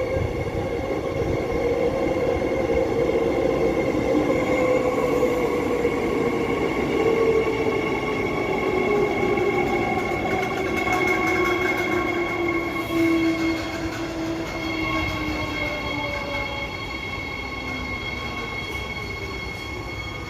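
A train running with a whine that slowly falls in pitch over several steady higher tones, and a faint, odd clicking in the middle, the clicking noise the train is filmed for. The sound eases off toward the end.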